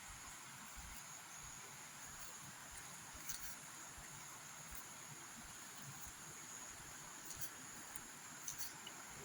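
Insects chirring: a faint, steady high-pitched drone, with a few brief sharp ticks scattered through it.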